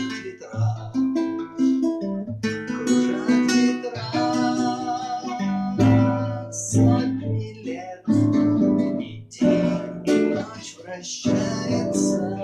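Music: an acoustic guitar strummed and plucked in chords, playing a song.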